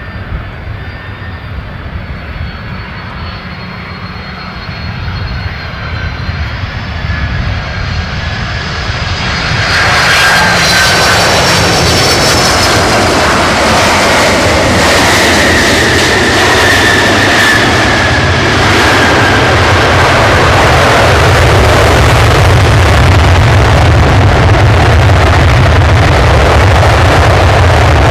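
Boeing 767-300 airliner's jet engines on landing. On approach a whine with high steady tones grows louder, then about ten seconds in the sound jumps to loud, full jet noise as the airliner comes close and rolls down the runway. A slowly falling tone sounds in the middle, and a deep rumble builds toward the end.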